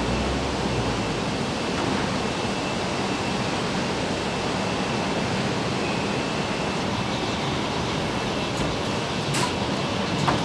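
Steady, even factory-hall noise, a dense rush with a faint high steady tone running through it. A couple of short clicks come near the end.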